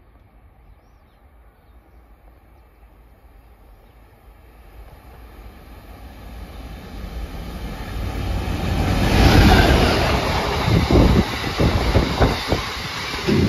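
Freightliner diesel freight train approaching and passing close by: a rising rumble that peaks as the locomotive goes past, followed by the clatter of box wagons' wheels over the rails.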